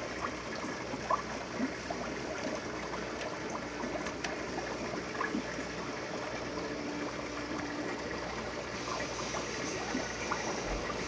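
Aquarium filter running: steady trickling and bubbling water with many small pops.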